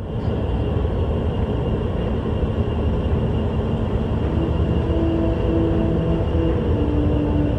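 Dark, droning background music: a steady low rumble, with held notes entering about halfway through that step in pitch.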